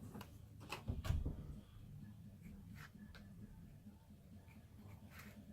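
Cardboard trading cards being handled and flipped: a few sharp clicks and light rubbing, loudest about a second in, then scattered small ticks over a faint low hum.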